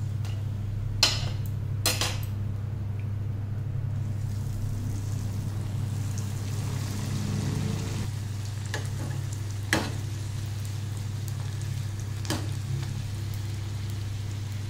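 Potato-stuffed wheat-flour rolls deep-frying in hot oil in an iron kadhai. The oil sizzles over a steady low hum, and the sizzle grows a few seconds in. Sharp metal clinks of a slotted spoon against the pan come twice near the start and twice later.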